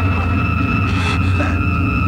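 Low, steady sci-fi engine drone with a thin, high whine held over it: an enemy flying craft hovering overhead.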